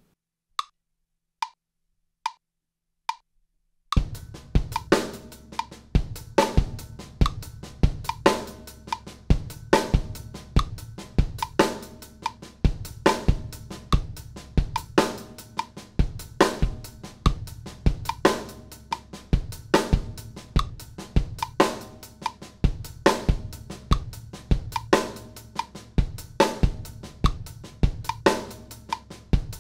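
A metronome clicks four times as a count-in, then a drum kit plays a linear sixteenth-note groove on kick drum, hi-hat and snare drum with the snares on: strong accented snare strokes and soft ghost strokes between them, with the metronome clicking along.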